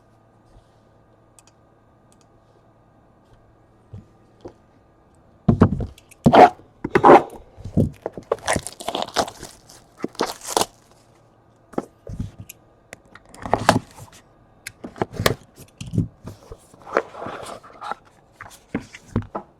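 Near silence for about five seconds, then a run of crinkling, tearing and tapping as trading-card packaging is torn open and the cards are handled.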